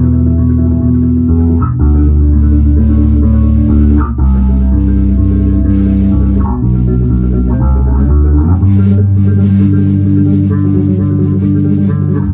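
Solo electric bass guitar played with classical-guitar tremolo picking: rapidly repeated plucked notes sustained over low bass notes, moving to new notes every two seconds or so.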